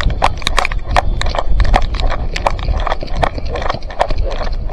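Quick, irregular footsteps, about four a second, with sharp knocks and clicks of gear jostling, over a low rumble of the body-worn camera being shaken.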